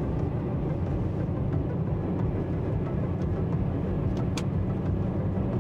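Road noise heard from inside a moving car: a steady rumble of tyres and wind, with one sharp tick about four seconds in.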